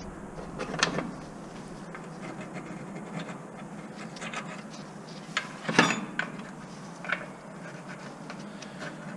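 Scattered clinks and scrapes of a spanner on a tight, seized threaded fitting on top of a steel fuel tank, with a sharper knock a little before six seconds in.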